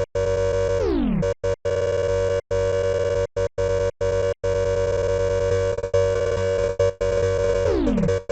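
Synthesized emergency-alert alarm tones: a harsh chord of steady electronic tones that cuts out abruptly several times, with a falling pitch sweep about a second in and another near the end.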